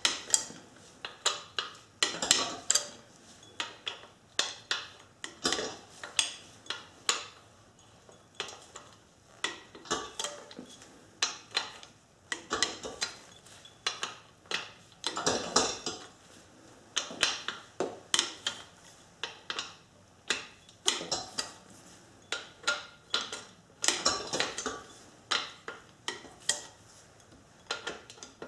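Socket ratchet clicking in quick runs, over and over with short pauses, as the 17 mm main bearing cap bolts are spun out of a cast iron engine block, with light metal clinks.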